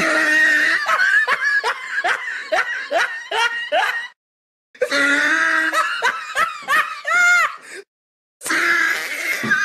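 High-pitched laughter in three bouts, each a run of quick 'ha' pulses, broken by two short, abrupt gaps of silence.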